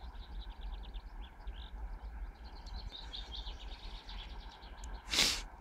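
Small songbirds chirping in quick repeated notes over a steady low wind rumble on the microphone. About five seconds in, a short loud rush of noise, louder than anything else.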